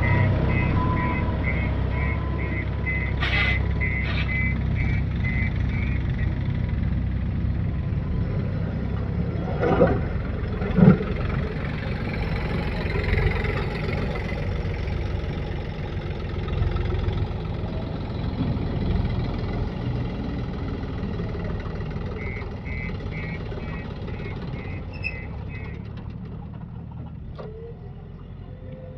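A heavy machine's diesel engine runs steadily. A reversing alarm beeps about twice a second at the start and again near the end. A couple of sharp knocks come about ten seconds in, and the engine sound fades gradually toward the end.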